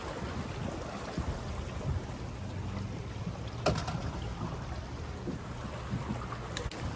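Swollen, fast-flowing floodwater rushing past boats and docks after heavy rain: a steady rush with a low rumble and a single knock a little past halfway.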